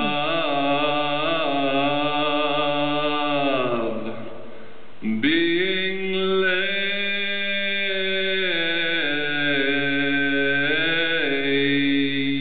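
Several voices chanting long held notes together as a chord. About four seconds in the chord slides down and fades. A second later it comes back suddenly and holds, shifting pitch a couple of times.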